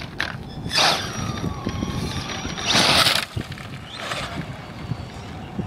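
Radio-controlled trucks driving on dirt: a thin motor whine that rises and falls, with two loud bursts of hiss about one and three seconds in.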